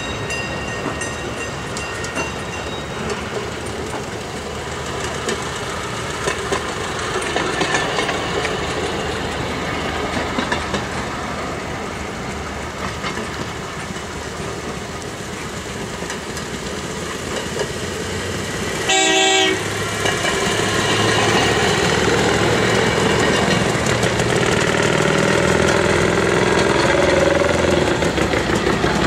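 A procession of railway motor cars (track speeders) running along the track, getting louder as the lead cars draw near in the second half. One short horn blast sounds about two-thirds of the way through.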